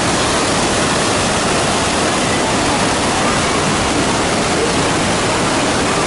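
Iguazu Falls, a huge waterfall, heard close up: a loud, steady roar of falling water with no let-up.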